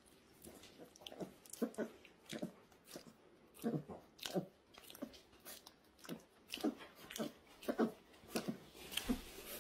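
A black-and-tan puppy chewing and smacking its mouth over its medication, in short wet smacks about once or twice a second.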